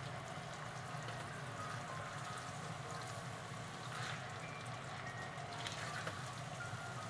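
Tofu and minced-meat sauce sizzling in a nonstick frying pan as tofu cubes are slid in from a cutting board and stirred with a spatula. There are a couple of short spatula scrapes about four and six seconds in.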